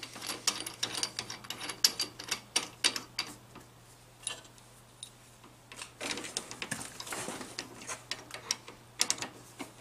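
A drill bit being handled and fitted into a drill press's chuck by hand, making a run of small metallic clicks and rattles. The clicks thin out for a couple of seconds in the middle and pick up again. A steady low hum runs underneath.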